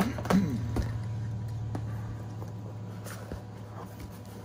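Cardboard shipping box being opened by hand: snaps and crackles of packing tape and cardboard flaps being pulled apart, loudest about the first half-second, then a few lighter crinkles. A steady low hum runs underneath.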